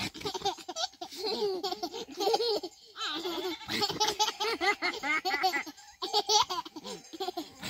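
Babies laughing in quick repeated bursts as they are tickled and nuzzled.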